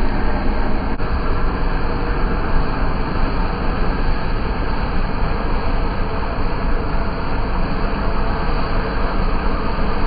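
John Deere combine running steadily while harvesting soybeans: a continuous, even drone of its diesel engine and threshing machinery.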